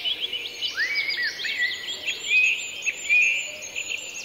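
Many small birds chirping and twittering at once, a dense chorus of short rising and falling calls over a faint steady hiss.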